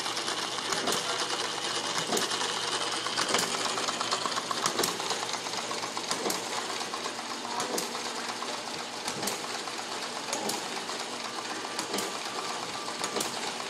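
Small air-cooled model hit-and-miss engine, built from an air compressor, running and driving a little drill press through a sewing machine belt: a steady light mechanical clatter with a sharper beat about every second and a half, typical of a hit-and-miss engine firing only now and then and coasting in between.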